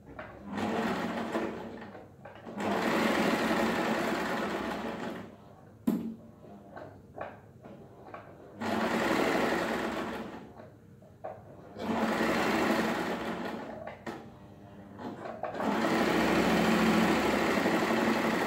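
Janome 3522 electric sewing machine stitching in five short runs of two to four seconds, stopping and starting between them, with a single sharp click about six seconds in.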